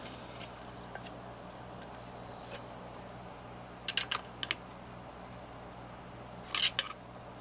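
Light clicks and rattles of a circuit board and its metal chassis being handled and wiggled to free the board, with a flurry of clicks about four seconds in and another near the end. A low steady hum runs underneath.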